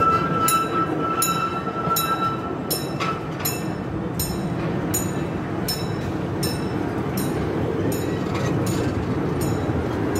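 Park railway train running, heard from on board: a steady rolling rumble with the wheels clicking over rail joints about three times every two seconds. A thin steady squeal runs through the first two and a half seconds.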